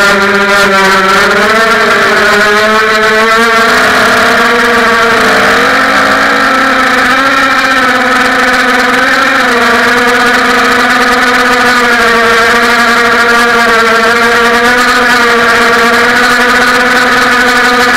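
ZMR 250 racing quadcopter's DYS 1806 brushless motors and propellers whining, picked up by the quad's own onboard camera. The pitch rises and falls with the throttle for the first few seconds, then holds steadier.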